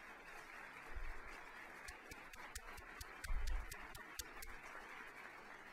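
Faint steady room noise with a quick run of about ten sharp clicks and two dull low thumps, the louder thump about three seconds in.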